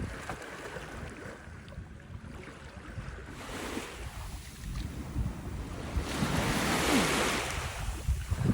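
Wind buffeting the microphone over waves washing against the paddle board; the wash swells past the midpoint and is loudest near the end.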